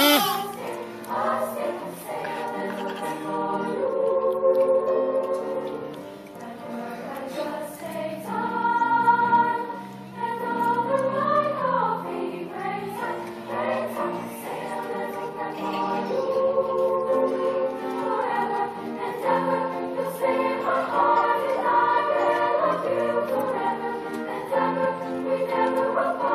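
A junior high school girls' choir singing, holding long notes.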